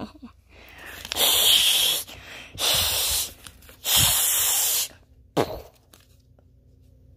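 Three loud bursts of hissing, rushing noise, each lasting under a second, then a short thump about five seconds in.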